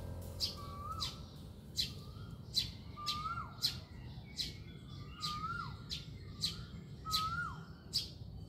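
Birds chirping: short sharp chirps about twice a second, with a whistled note that holds and then drops steeply about once a second.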